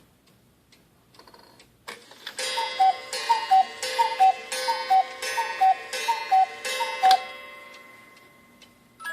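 Schneider cuckoo clock with a Swiss mechanism striking the hour. Faint ticking, then a click from the movement, then about seven two-note cuckoo calls from its twin bellows whistles, each with a hammer strike on a gong wire. The ringing fades near the end.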